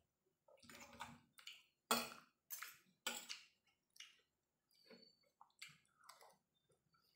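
Close-up eating sounds: faint chewing mixed with a spoon and fork scraping and tapping on a plate. The sounds come as a string of short, irregular noisy strokes, the loudest about two seconds in.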